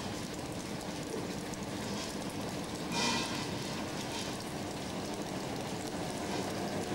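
Steady rain and wet-street traffic noise, with one brief louder swell about three seconds in.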